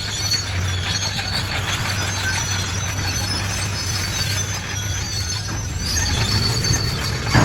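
Bulldozer's diesel engine running steadily while its steel crawler tracks squeal, with a sharper, louder clank near the end.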